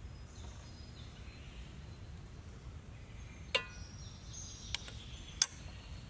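Birds chirping over a steady low outdoor rumble, with three sharp taps in the second half, the first and last the loudest: a wooden spoon knocked and set down on a wooden board.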